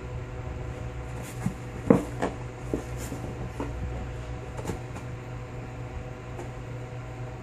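Golden retriever chewing and tearing at a cardboard tissue box: scattered short crackles and snaps of cardboard, the loudest about two seconds in, over a steady low hum.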